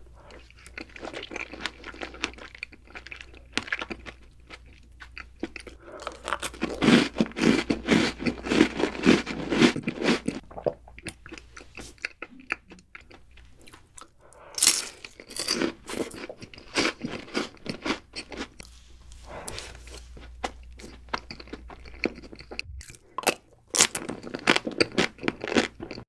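Close-miked eating of chocolate sweets: bites, then crunching and chewing in clusters, loudest about a third of the way in, with a crisp fresh bite about 15 seconds in and another near the end.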